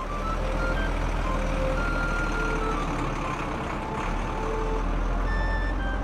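Truck engine sound effect, a steady low rumble, as a tow truck reverses.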